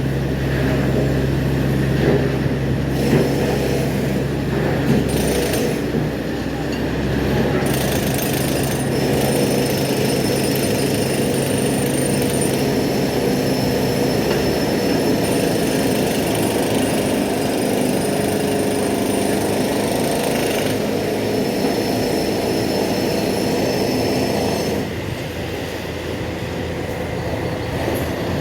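Heavy diesel earthmoving machinery running continuously with a steady engine drone and some high squealing tones; the sound shifts about halfway through and eases a little near the end.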